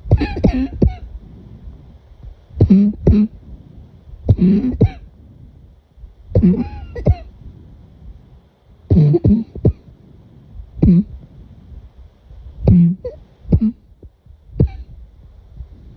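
A person coughing over and over, mostly two sharp coughs at a time, with a new pair every two seconds or so.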